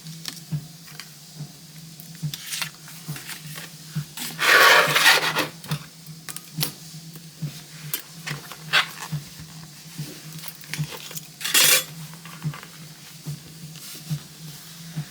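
Handling noises from a leather notebook cover and its contents: scattered small clicks and taps, with two louder rubbing or scraping bursts, one lasting about a second near 4.5 s in and a shorter one near 11.5 s in.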